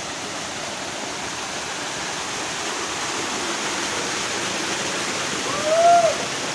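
Waterfall pouring steadily, a constant rush of falling water. Near the end a short cry rises and falls once, louder than the water.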